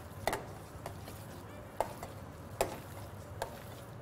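Gloved hands mixing spiced minced lamb in a stainless steel bowl, with four sharp knocks roughly a second apart and fainter clicks between, over a steady low hum.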